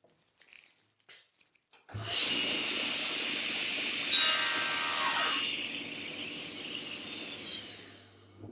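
Table saw with a 250 mm, 72-tooth crosscut blade (Woodwork 37.250.72) crosscutting an oak parquet board. The sound comes in suddenly about two seconds in. The cut through the board, a little after four seconds in and about a second long, is the loudest part, and the sound fades away near the end.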